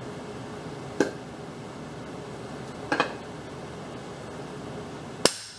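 Hammer blows on metal, driving a mower deck spindle assembly together: three sharp strikes about two seconds apart, the middle one a quick double hit, each ringing briefly.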